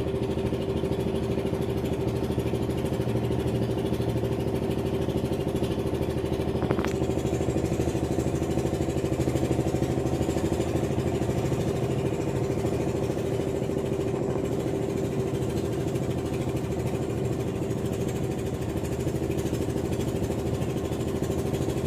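An engine running steadily at an even speed, with one short click about a third of the way through.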